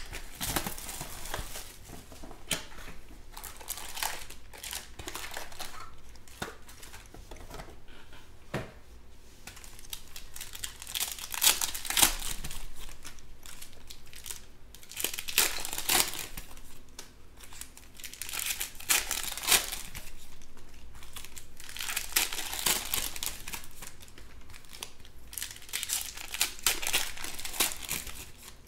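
Foil wrappers of Panini Chronicles Baseball trading-card packs being torn open and crinkled by hand. The crinkling and sharp rips come in bursts every few seconds as pack after pack is opened.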